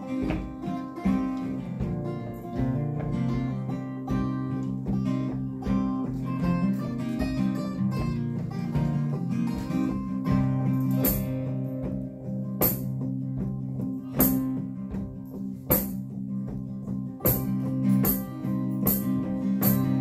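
Acoustic folk band playing an instrumental passage: strummed and picked acoustic guitars with a banjo, without singing. From about halfway, sharp percussive clicks join in, roughly one or two a second, and are the loudest sounds.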